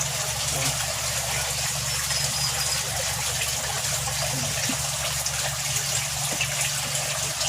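Steady running, bubbling water, typical of an aquarium's aeration, over an even low electrical hum.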